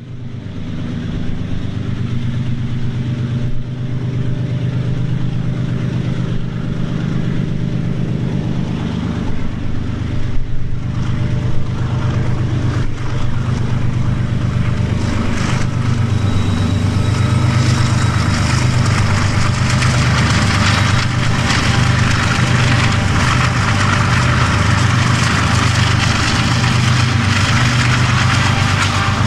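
BNSF diesel-electric locomotives working hard under heavy load, pulling a double-stack container train up a steep grade. A deep, steady engine drone grows louder as the units approach. Rising wheel-and-rail noise joins in during the second half.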